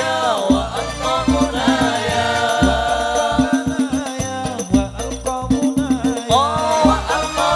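Hadroh music: male voices singing a sholawat over hand-struck rebana frame drums beating a steady rhythm of many strokes.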